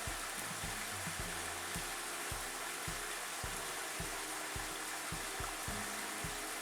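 Steady hiss with soft low thumps about twice a second; no rooster crows.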